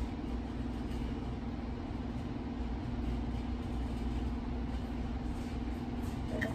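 A steady low mechanical hum with a held tone in it, unchanging throughout.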